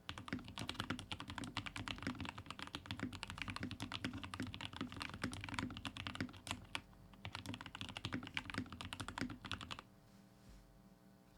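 Fast, continuous typing on a Royal Kludge RK61 60% mechanical keyboard with linear Gateron Milky Yellow switches and GMK ABS keycaps, its case foam-filled and tape-modded. The typing stops about ten seconds in, leaving only a faint steady hum.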